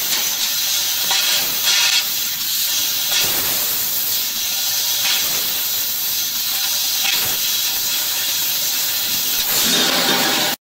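Fiber laser tube cutter working on stainless steel pipe: a steady hiss of assist gas from the cutting head, swelling briefly every couple of seconds.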